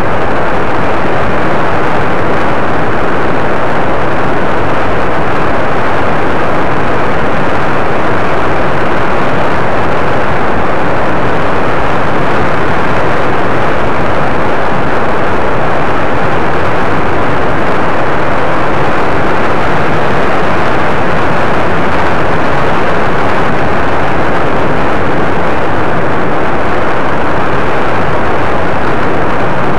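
Steady, loud rushing noise of wind and a paramotor's engine in flight, picked up by a small camera's microphone, unchanging throughout.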